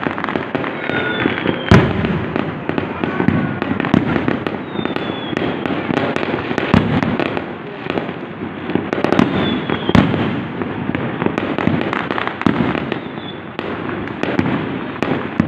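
Fireworks going off in a dense barrage: continuous crackling and popping with many sharp bangs, two of them louder, about two seconds and ten seconds in. A few short falling whistles are heard.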